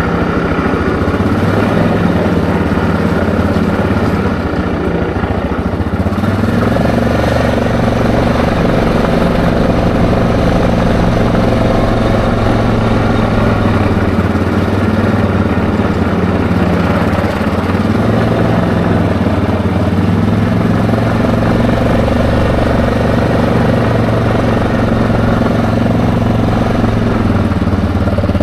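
ATV engine running at low speed as it rolls along a paved lane, its pitch rising a little about six seconds in, then easing off and picking up again a few times.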